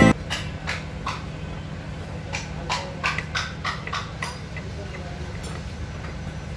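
Hands pressing and patting a foam block onto a motorcycle seat's foam base: a string of irregular short taps and scuffs, about ten in the first five seconds, over a steady low hum.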